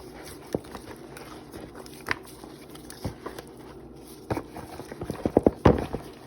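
Scattered knocks and taps, with a quick run of several in a row near the end, typical of kitchen items being handled and set down.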